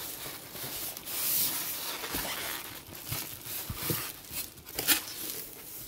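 Plastic wrapping and styrofoam packing blocks rustling and scraping against a cardboard carton as a water pump is pulled out of its box. The rustle is loudest about a second in, and there are a few sharp knocks, the strongest near the end.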